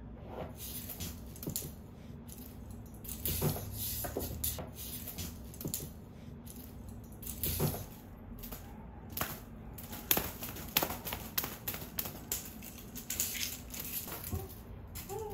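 Irregular light taps, clicks and rustles of house cats jumping down and playing on a laminate floor.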